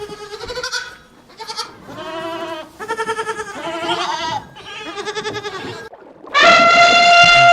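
Repeated bleating: a run of short quavering calls, then one longer and louder bleat near the end.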